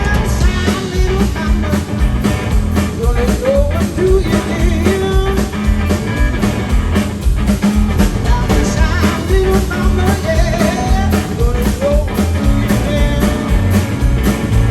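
Blues band playing live through an instrumental stretch: a lead melody of bending, sliding notes over steady bass and regular drum hits.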